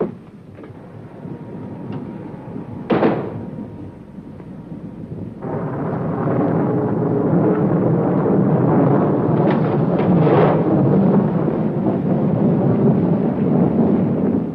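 Thunderstorm sound effect: a sharp crack about three seconds in, then a long, loud rumble of thunder from about five seconds in that cuts off abruptly at the end.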